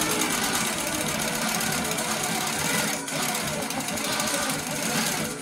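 Baby Lock Coronet quilting machine stitching at speed, a fast steady needle chatter as the quilt is guided under the foot.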